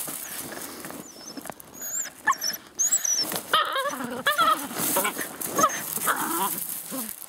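Dutch shepherd puppies, seven weeks old, give many short high yips and whines while biting and tugging at a bite sleeve. The cries come thickest from about two seconds in.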